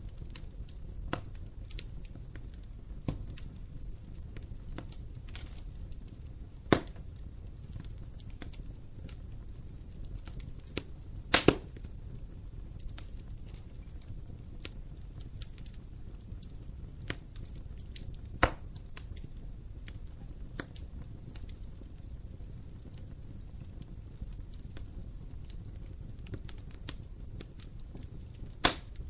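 Wood fire burning in an open fireplace: a low steady rumble with scattered crackles and a handful of sharp pops, the loudest a quick double pop a little before halfway and one near the end.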